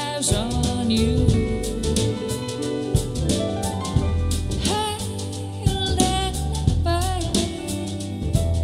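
Music: a soul-jazz song with a sung vocal line over drum kit and bass.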